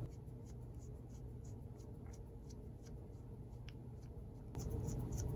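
Small screwdriver turning tiny cheese-head screws into a model locomotive's metal cylinders and chassis: faint scratchy ticks, about three a second, over a steady low hum that gets louder near the end.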